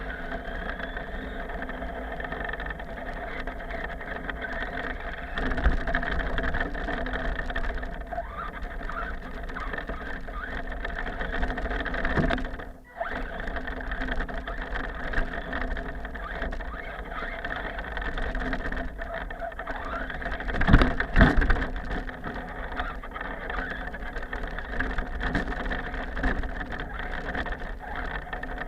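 A radio-controlled car's motor running with a steady whine, broken by a few loud knocks about five seconds in and again around twenty-one seconds. The sound cuts out for a moment about thirteen seconds in.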